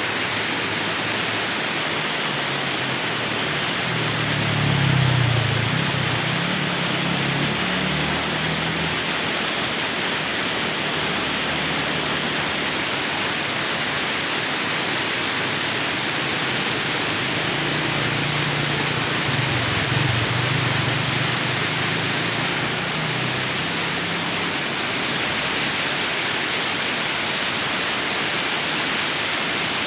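River water rushing steadily in a continuous dense hiss. A low rumble swells and fades twice, about four seconds in and again about eighteen seconds in.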